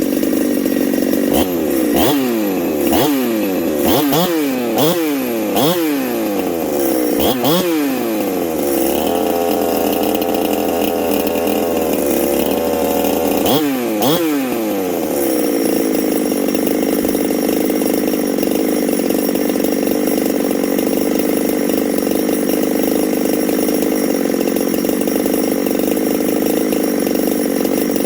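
Husqvarna 372XP two-stroke chainsaw engine being revved in quick throttle blips about once a second, then held at a higher steady speed for a few seconds, blipped once more, and left running at a steady idle.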